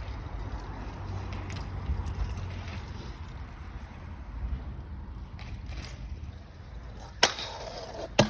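Skateboard wheels rolling over pavement in a steady low rumble, with two sharp clacks of the board about seven and eight seconds in.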